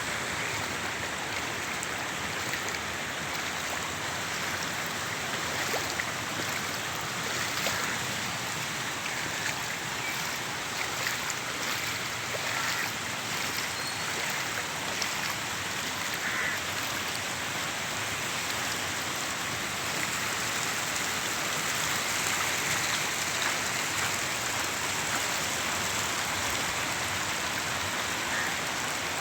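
Steady rush of water with small scattered ticks and splashes, typical of floodwater flowing or rain falling.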